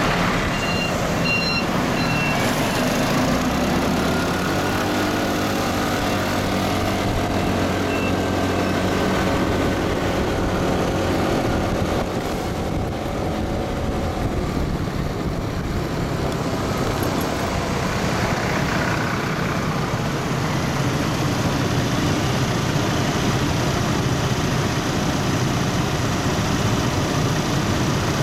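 Road traffic heard from a moving motorcycle: a steady rush of wind and road noise under engine hum, whose pitch climbs and falls a few seconds in. A few short high beeps sound near the start.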